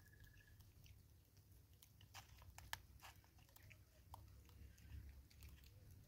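Faint, scattered crunching clicks of a vervet monkey eating birdseed, with the most clicks about two to three seconds in, over a low steady rumble.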